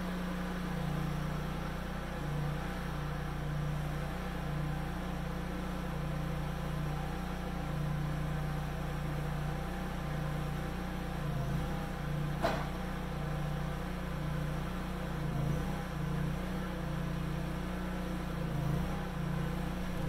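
Vermeer CTX50 mini skid steer's engine running steadily, its note wavering slightly as the machine works, with a single sharp knock about midway.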